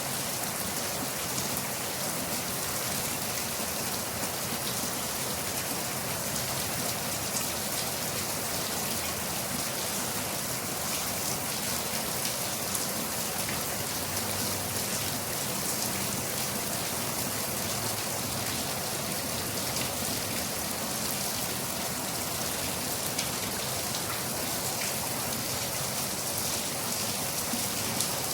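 Steady rain falling, a continuous hiss with many fine drop patters on a surface.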